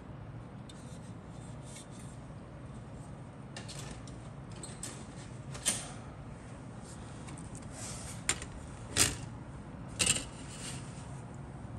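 Plastic model-kit sprues being handled and set down on a cutting mat: light rustling, then four sharp plastic clacks in the second half, over a low steady hum.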